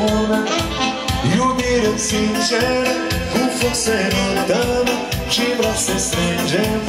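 Live saxophone-led Romanian folk dance music with a steady beat.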